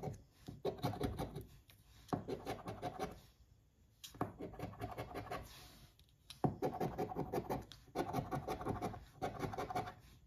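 A coin scraping the coating off a lottery scratch-off ticket: spells of rapid back-and-forth strokes, each about a second long, broken by short pauses.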